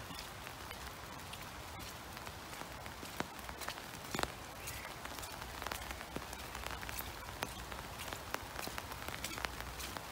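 Steady rain falling on leaves and the ground, with many scattered sharp drop clicks.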